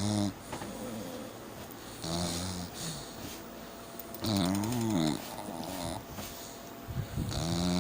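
Snoring, one snore about every two and a half seconds: each is a pitched rumble with a breathy hiss, three full snores and the tail of another.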